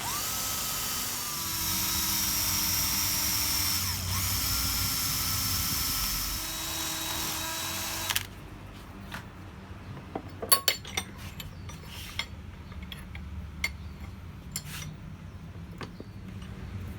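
Electric drill running for about eight seconds, its pitch shifting as it cuts, boring rivet holes in the forged steel latch pieces. It then stops suddenly, and a few light metallic clinks follow.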